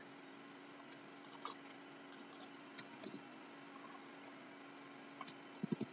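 Scattered computer keyboard keystrokes, a few soft clicks every second or so, over a faint steady hum. A quick run of heavier, deeper key thumps comes near the end.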